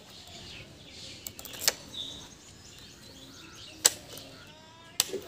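Three sharp clicks about two seconds apart as the buttons on a motorcycle's digital instrument cluster are pressed, with birds chirping faintly.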